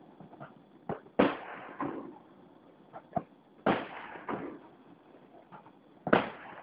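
Aerial fireworks going off: three loud booming shell bursts about two and a half seconds apart, with smaller pops and crackle trailing after each.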